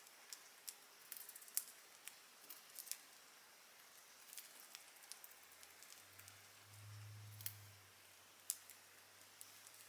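Budgerigars chewing and nibbling dry seagrass: sparse, irregular crisp clicks and crunches from their beaks. A faint low hum joins about halfway through, strongest a couple of seconds later.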